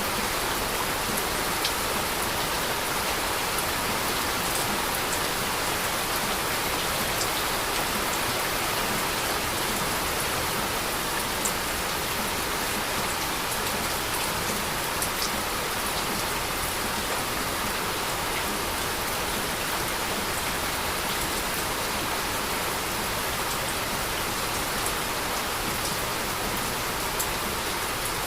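Steady heavy rain falling, an even hiss with scattered drop ticks and no let-up.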